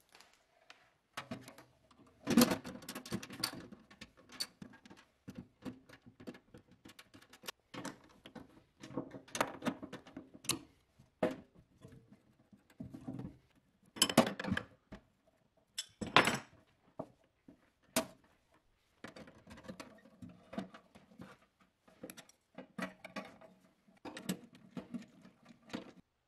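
Workbench handling sounds while a small submersible pump is fitted into a plastic parts washer tub: irregular clicks, knocks and rattles of metal fittings and tools against plastic, with an adjustable wrench working on the pump's brass fitting. A few sharper knocks stand out, about two seconds in and again around fourteen and sixteen seconds in.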